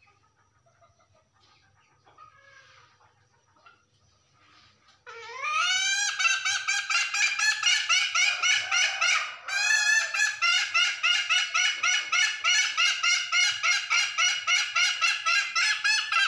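A hen's ngekek, the long, rapid cackling call that a hen gives to summon a rooster. It starts about five seconds in with a rising note, then runs on as a fast, even string of several notes a second, breaking off briefly about four seconds later before going on.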